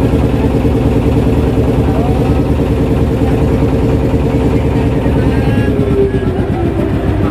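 A small wooden boat's engine running steadily while the boat is under way. Its note drops slightly about six seconds in.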